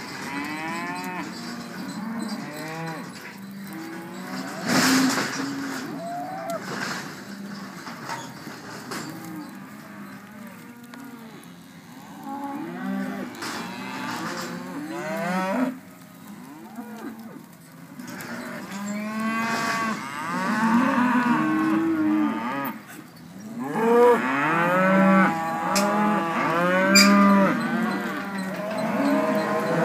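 A herd of young beef cattle mooing, many calls overlapping almost without a break, getting busier and louder in the second half. A short bump about five seconds in.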